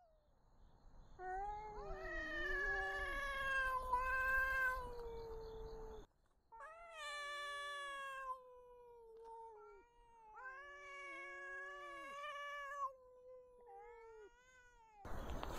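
Two cats yowling at each other in a territorial standoff: long, drawn-out, wavering yowls, the two voices overlapping at times, with short breaks between bouts.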